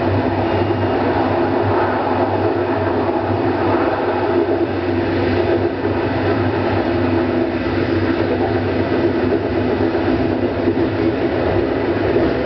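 Meiringen-Innertkirchen-Bahn electric railcar running steadily through a tunnel, heard from inside the cab: continuous wheel-and-rail noise with a steady low hum.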